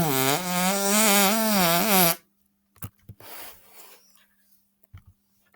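A boy's imitation fart sound: one long buzzing note lasting about two seconds, its pitch wobbling, followed by a few faint breathy sounds.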